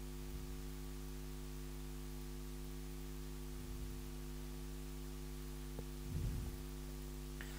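Steady electrical hum made of several fixed low tones, with a faint low thump about six seconds in.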